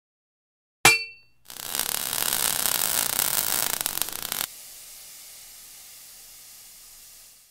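Logo intro sound effect: a sharp metallic clang that rings briefly, then a loud hiss of sparks for about three seconds that cuts off suddenly, leaving a fainter hiss that fades out near the end.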